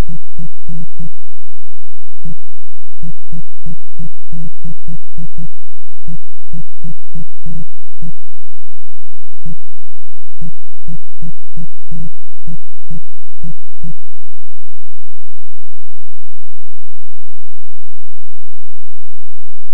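Steady electrical hum with loud, irregular clicks, sometimes several a second, that stop about two-thirds of the way through. The hum cuts off suddenly near the end.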